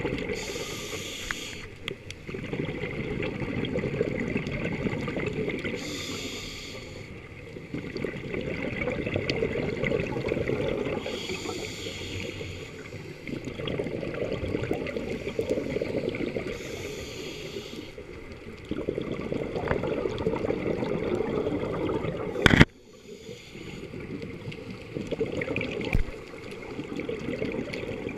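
Scuba diver breathing through a regulator, heard underwater: a hiss on each inhale every five or six seconds, with the bubbling rumble of exhaled air between. One sharp click about three-quarters of the way through.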